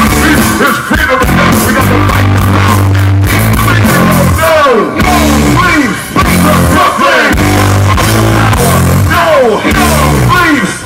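Live rap-rock band playing loud: distorted electric guitar and bass riffing over drums, with shouted rap vocals. A few falling pitch swoops cut through the riff.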